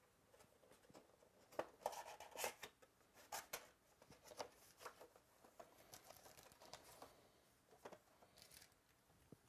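A cardboard trading-card box being opened by hand and its foil-wrapped packs pulled out: irregular tearing and crinkling, loudest about two seconds in.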